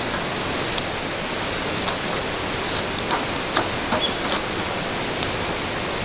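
Wood fire crackling in a steel fire pit: a steady hiss of burning logs with sharp pops and snaps scattered throughout, the loudest about three and three and a half seconds in.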